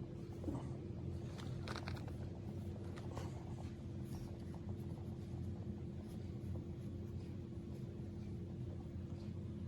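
Steady low electrical or mechanical hum, with faint scraping and clicking handling noises in the first few seconds.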